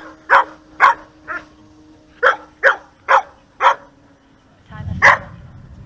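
Dog barking loudly in quick runs: four sharp barks, a short pause, four more, then a single bark about five seconds in over a brief low rumble.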